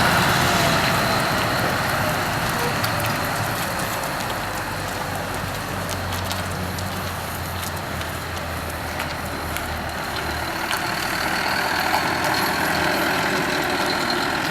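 Scania R620 truck's V8 diesel engine running, with a whine that falls in pitch over the first few seconds as it eases off. It gets louder again near the end.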